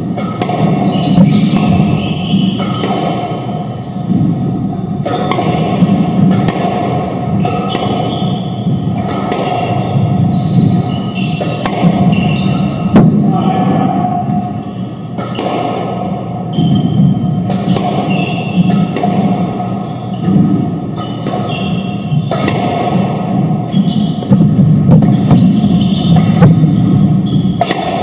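Squash ball strikes from racquets and walls echoing around a squash court in irregular rally rhythm, over steady background music.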